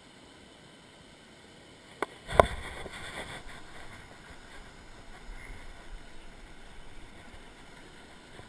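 Steady rush of a waterfall and river. About two seconds in, a sharp click and then a single loud thump, the loudest sound here.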